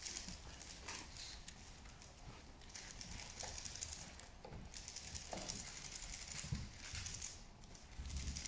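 3x3 speedcube being turned fast: bursts of quick plastic clicking and rattling, thickest a little after the middle, over a steady low room hum.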